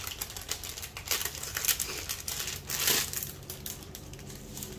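A small clear plastic bag crinkling as it is handled, in irregular short crackles, loudest about two to three seconds in and fainter near the end.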